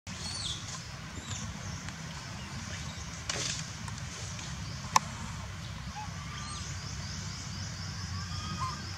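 Outdoor ambience among the trees: a steady low rumble and a high hiss, with a few faint high chirps and a single sharp click about five seconds in.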